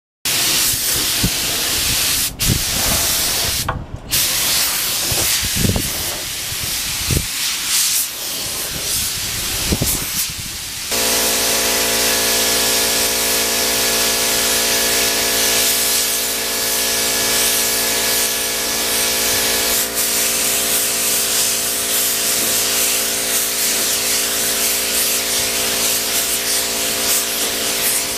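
Gravity-feed paint spray gun hissing as it sprays clear coat, the air cutting out briefly twice in the first ten seconds as the trigger is released. About eleven seconds in, a steady mechanical hum starts under the hiss and continues.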